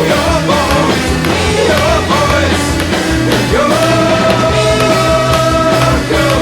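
Rock song with a singing voice; about halfway through, the singer holds one long steady note until near the end.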